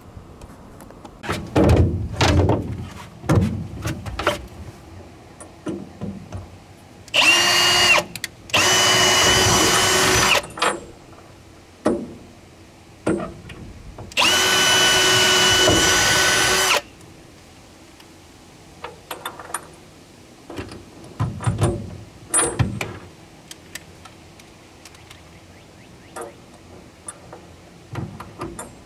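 Cordless power tool whining in three runs, the last about two and a half seconds long, driving lag bolts into a wooden truck bed, with knocks and clatter of handling in between.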